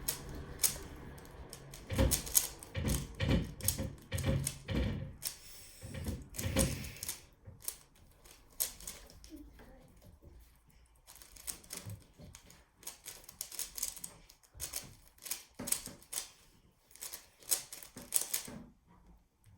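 Rubik's Speed Cube being turned by hand, its plastic layers clicking and clacking in quick, uneven runs, loudest in the first several seconds and lighter after that.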